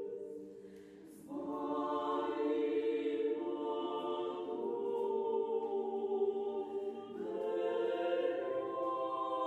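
A choir singing slow, held chords with no instruments. The sound fades briefly, then a new chord comes in about a second in, and the harmony shifts again about seven seconds in.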